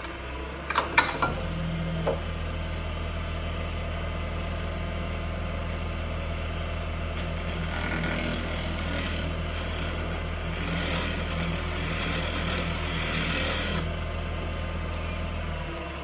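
Wood lathe motor starting with a few clicks and then running steadily, switching off just before the end. From about seven seconds in, a turning tool scrapes against the spinning wooden mallet for about six seconds, smoothing its surface before sanding.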